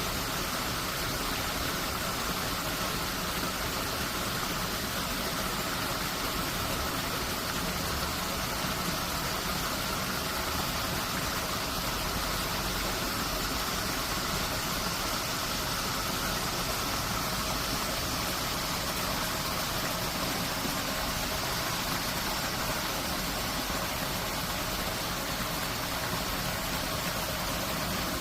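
Steady, even rush of stream water pouring through the arches of a stone floodgate.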